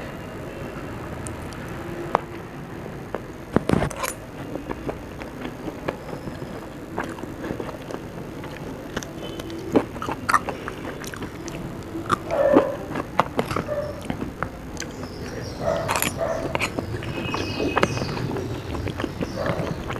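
A person eating sabudana khichdi, sabudana vada and chillies close to the microphone: chewing and biting, with irregular crunches and wet mouth clicks.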